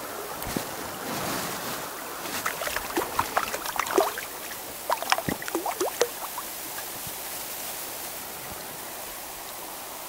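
Creek water splashing in a quick patter of small splashes and drips between about two and six seconds in, as a trout is handled at the surface, over the steady rush of the stream.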